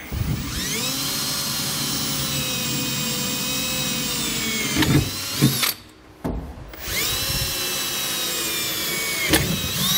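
Cordless drill with a pilot bit drilling pilot holes through a fifth-wheel base rail's mounting holes into the steel truck bed: two runs of about four seconds each, separated by a short pause. Each starts with a rising whine, holds a steady whine, and ends with a sharp rise in pitch.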